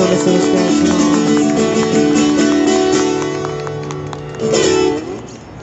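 Guitar playing the closing chords of a song's instrumental outro, dying away, then a final strummed chord about four and a half seconds in that is cut off sharply.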